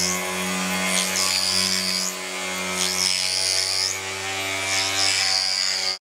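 Electric polishing machine running with a steady motor hum while its spinning buffer works a silvered daguerreotype plate, a higher hiss swelling about every two seconds. The sound cuts off suddenly near the end.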